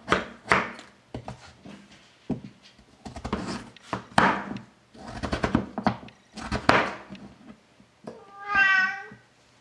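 Domestic cat meowing over and over, the last meow near the end long and clear: a hungry cat begging for its dinner. A few light knocks come between the calls.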